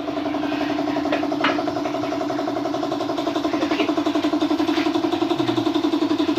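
A motor-driven machine running steadily with an even, fast-pulsing hum that swells at the start.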